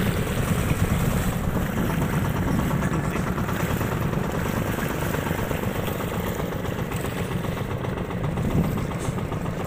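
A small engine running steadily at an even speed, with a fast low pulsing drone.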